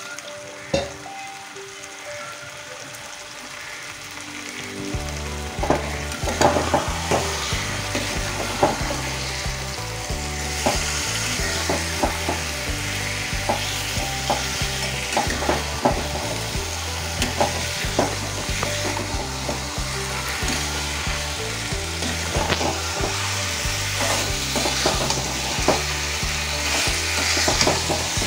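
Marinated chicken sizzling in an aluminium kadai on a gas burner, with a metal spatula scraping and knocking against the pan as the meat is stirred to brown it down (kosha). The frying gets louder about five seconds in.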